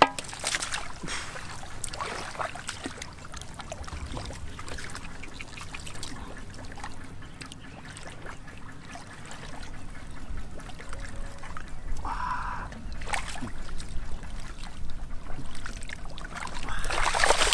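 Swamp water splashing and trickling in irregular bursts, with a louder flurry of splashes near the end.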